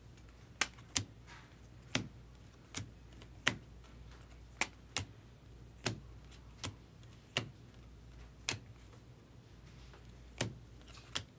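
A stack of baseball cards being flipped through one card at a time by hand. Each card gives a short, sharp click as it is slid off the front of the stack onto the back, about once a second at an uneven pace.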